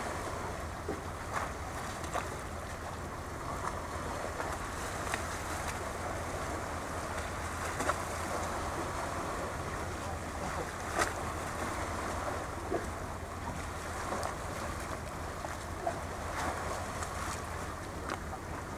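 Steady wind and water noise along the shoreline, with the wind buffeting the microphone and a low rumble underneath. Short ticks or splashes stand out every few seconds.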